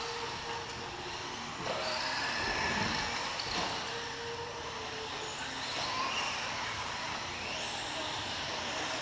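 Electric RC off-road buggy, a Tamiya Frog, with its motor and gears whining. The pitch rises and falls repeatedly as the throttle is worked.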